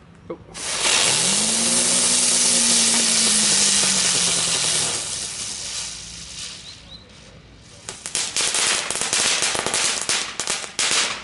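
Consumer ground firework burning: a loud rushing hiss for about four seconds that then fades, followed near the end by a quick run of sharp crackles.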